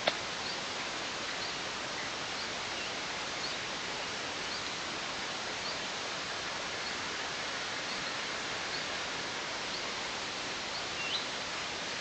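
Steady outdoor hiss of wind in the pine around an eagle nest, with a bird repeating short, faint, high chirps about once a second and one sharp click just at the start.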